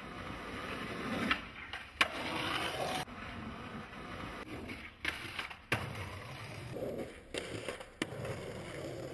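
Skateboard wheels rolling on concrete, broken by several sharp clacks of the board hitting the ground, the loudest about two seconds in and again near six seconds.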